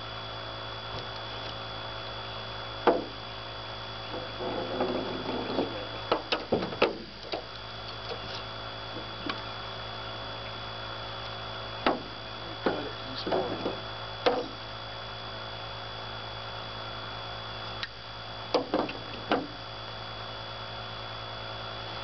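Scattered knocks and thumps from a flathead catfish and gear being handled on a boat deck, the sharpest about three and seven seconds in, over a steady low hum.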